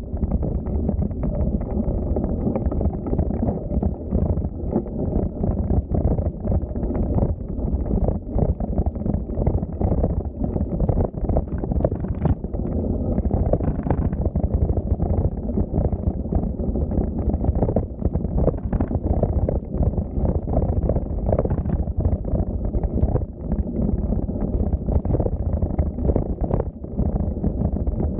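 Rumble of a bicycle riding along, with wind buffeting the microphone: a steady, muffled noise broken by many small knocks and jolts.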